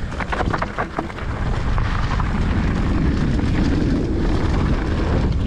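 Mountain bike riding down a dirt trail: tyres rumbling and wind rushing over the microphone. Sharp rattles and clacks of the bike over rough ground come in the first second, then the rush builds and stays loud as the bike picks up speed.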